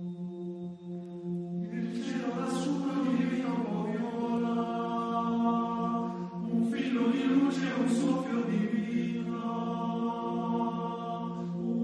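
Ambient soundtrack music: a steady low drone, joined about two seconds in by a chant-like choral layer that swells twice and eases off.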